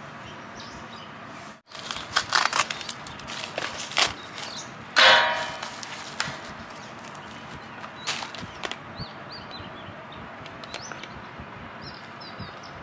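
Product packaging being handled during an unboxing: rustling and clicks, with one loud scraping rasp about five seconds in, then quieter handling clicks.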